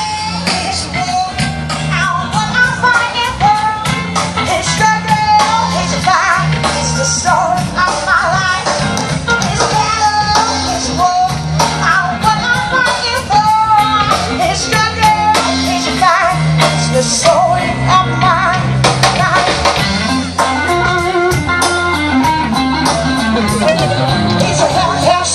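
Amplified rock band playing a song over a PA system: a singer over guitar, bass and drums.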